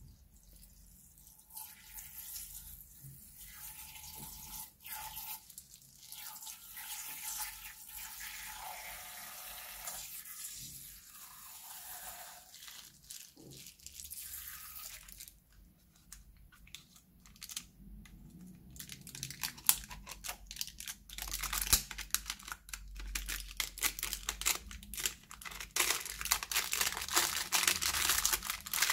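Slime being worked in plastic piping bags: wet squishing with crinkling of the bag plastic. It becomes a dense, louder crackle of many small pops over the last ten seconds.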